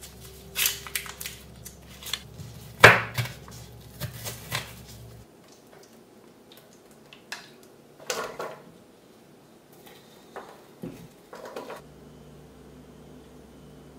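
Kitchen knife cutting an onion on a wooden chopping board: a run of sharp knocks, the loudest about three seconds in. After that come a few quieter, scattered knocks and clatters of cookware.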